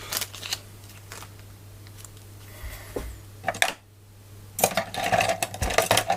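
Small metal screws clinking and rattling as they are handled, with scattered clicks at first and a denser rattle over the last second and a half.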